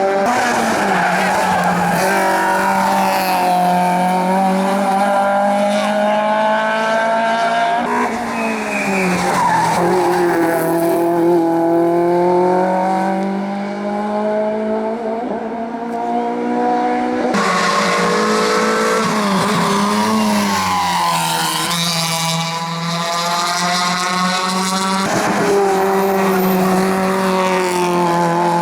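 Racing car engine at hard throttle on a hillclimb, its pitch climbing and dropping repeatedly through gear changes and lifts, with tyres squealing.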